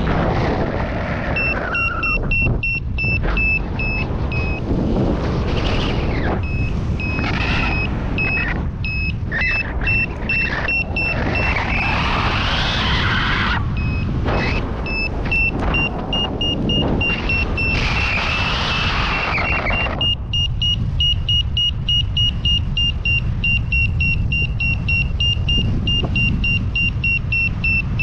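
Wind buffeting the microphone in flight, with a paragliding variometer giving rapid high beeps, its climb tone signalling lift.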